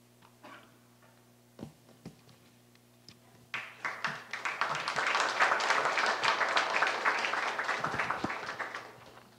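Audience clapping, starting about three and a half seconds in and dying away near the end. Before it, only a few faint taps.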